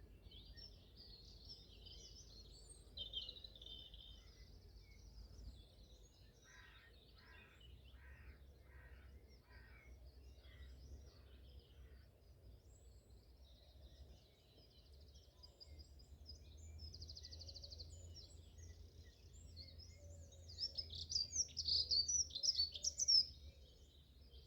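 Wild birds singing and chirping, with one bird giving a run of about seven evenly spaced calls partway through and a louder burst of song near the end, over a low steady rumble.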